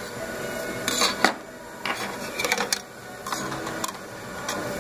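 Steel feed plate of a Juki LK-1900B bartacking machine being set in place by hand, giving several sharp metal clinks and scrapes against the machine bed.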